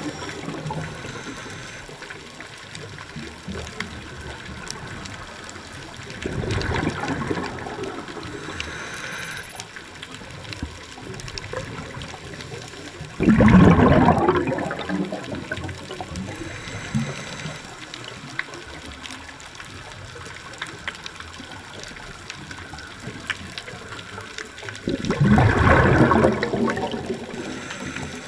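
Scuba diver's exhaled air bubbling out of the regulator underwater, in three gurgling surges several seconds apart, the second the loudest, over a steady underwater hiss.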